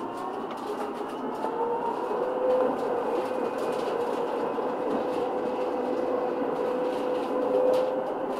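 Munich R2.2 low-floor tram pulling away from a stop. Its electric traction drive gives a whine that rises slowly in pitch as the tram gathers speed, over steady wheel-and-rail running noise with a few light clicks.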